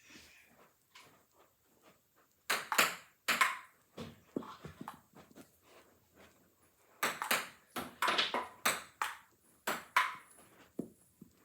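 Table tennis paddles hitting a cat toy ball and the ball bouncing on the table, in two short rallies: a few quick hits about two and a half seconds in, and a longer run of hits from about seven to ten seconds.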